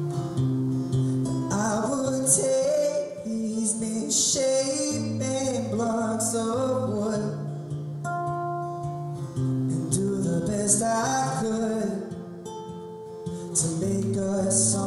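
Acoustic guitar being played with a man singing over it, a live solo performance of an acoustic song.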